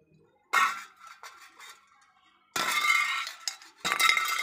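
Metal aerosol spray-paint cans knocked over by an axe, clattering and rolling on concrete. A sharp knock comes about half a second in. A rattling, ringing roll follows, about a second long, and a second, longer roll starts near the end.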